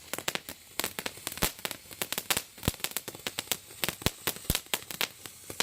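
A firework going off with a rapid, irregular string of sharp pops and crackles, some much louder than others.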